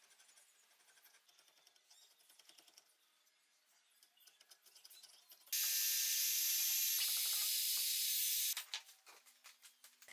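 Palm trim router running and cutting into a hardwood block: a loud, steady, high-pitched whine that starts abruptly about five and a half seconds in and stops about three seconds later. Before it, faint scraping and ticking of hand work on the wood.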